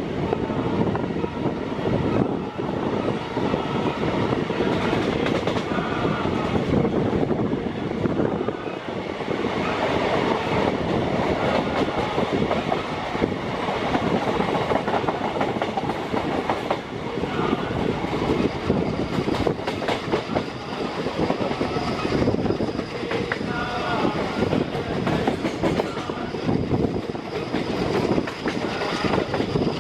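Express train running at speed, heard from on board: the coaches' wheels clattering over the rail joints with a steady clickety-clack and a continuous rumble.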